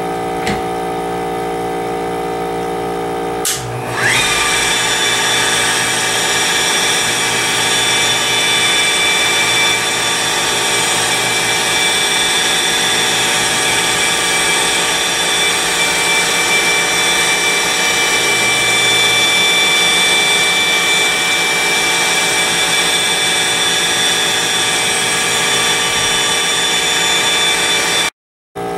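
Flex 12-3 100 wet polisher spinning a 500-grit NSI pad over wet quartz countertop, a steady motor whine. About four seconds in there is a click, and the whine jumps higher and holds.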